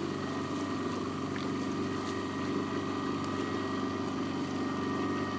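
Fishing boat's engine running steadily at low speed, an even hum with a constant high whine above it.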